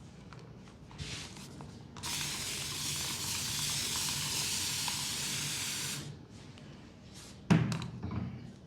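A spray hissing steadily for about four seconds, then stopping. A sharp thump about a second later is the loudest sound, followed by a few softer knocks.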